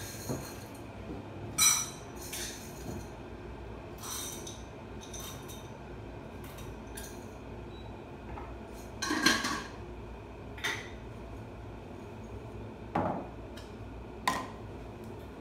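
Sharp clinks and knocks of containers and utensils on a shop counter as coffee beans are handled and weighed out, one every second or two, the loudest about nine seconds in, over a faint steady hum.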